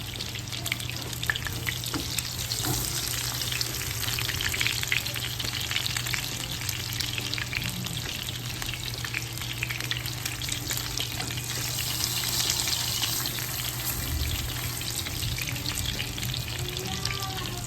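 Salisbury steak patties of ground beef sizzling and crackling in hot oil in a frying pan, a steady sizzle dotted with small pops.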